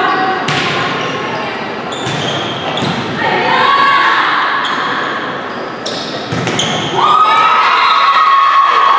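Volleyball rally in a gym hall: several sharp smacks of the ball off players' arms and hands, with players' shouted calls. About seven seconds in, loud sustained shouting and cheering break out as the rally ends.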